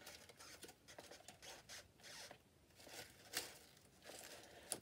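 Faint rustling and light scraping of craft flowers being handled and pressed into a small pot, with a couple of sharper ticks about three and a half seconds in and near the end.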